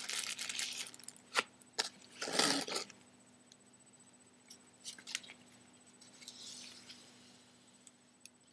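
Small household objects handled by hand on a wooden tabletop: a brief rustle, sharp clicks, and a louder crinkly rustle a couple of seconds in, then a few more light clicks and a soft rustle.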